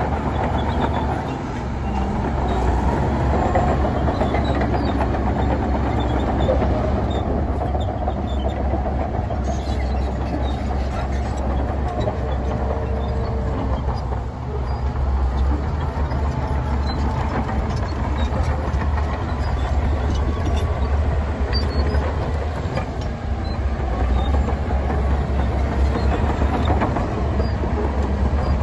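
Heavy diesel earthmoving machinery running steadily with a deep, continuous rumble.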